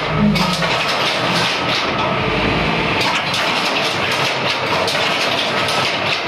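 Power loom with an electronic jacquard head running, a loud, continuous rapid mechanical clatter of repeated clicks and knocks.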